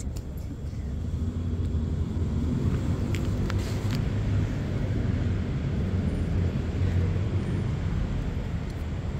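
Low, steady rumble of a motor vehicle's engine running close by, swelling about a second in and easing slightly near the end, with a couple of faint clicks in the middle.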